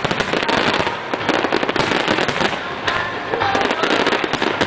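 Fireworks display: aerial shells bursting in a dense, continuous barrage of bangs and crackles, many each second without a pause.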